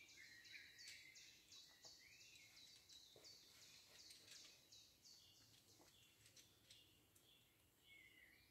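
Faint birdsong: a quick series of high repeated calls, about three a second, fading out about halfway through, with softer lower warbling notes between them.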